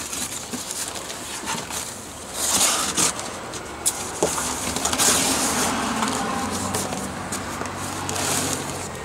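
Hands opening a cardboard shipping box: packing tape pulling loose and cardboard flaps scraping and rustling in irregular bursts, with a few sharp clicks. A faint low hum sits underneath in the second half.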